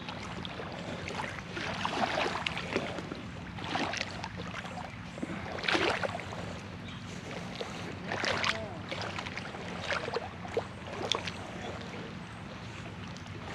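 Footsteps and rustling brush, irregular crackles and scuffs, as someone picks their way along a slick, overgrown riverbank, over a steady low hum.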